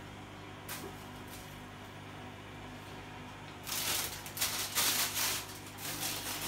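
A plastic bag rustling and crinkling in a run of loud bursts starting a little past halfway, over a steady low hum.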